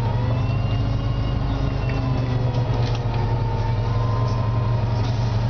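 Cabin of a 2003 Orion VII CNG transit bus under way: its Detroit Diesel Series 50G natural-gas engine runs with a steady low drone, and a thin whine above it drifts slowly in pitch.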